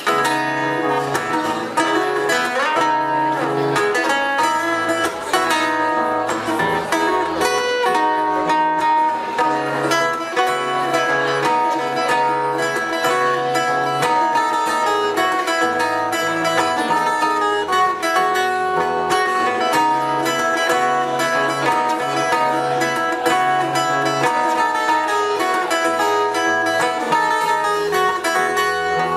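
A live band playing an instrumental break without vocals: guitar to the fore, with a bass line moving underneath.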